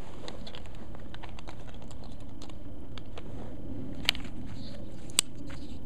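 Light clicks and rustles of feather fletching being handled on an arrow shaft while the feather ends are trimmed with a knife, with two sharp snaps about four and five seconds in.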